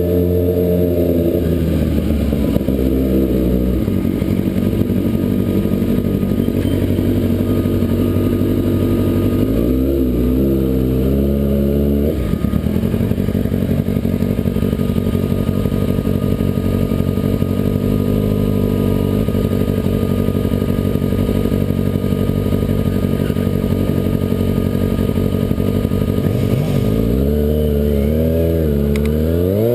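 Kawasaki ZX-6R 600cc inline-four sportbike running through a Competition Werkes aftermarket exhaust while being ridden. The engine note drops in the first few seconds, rises briefly about ten seconds in, holds steady through the middle, then dips and climbs again near the end.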